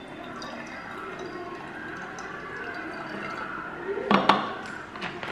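Liquid trickling from a plastic bottle into the narrow neck of a glass bottle as it fills. About four seconds in there are a few sharp knocks as the upturned plastic bottle is set onto the glass bottle's mouth.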